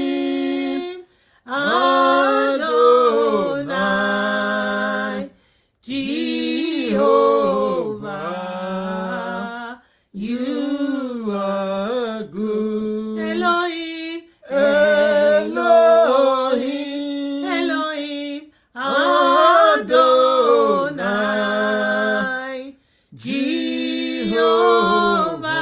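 A solo voice singing a slow worship chant without accompaniment. It sings in long, drawn-out phrases with ornamented, sliding notes, about six phrases with a short breath between each.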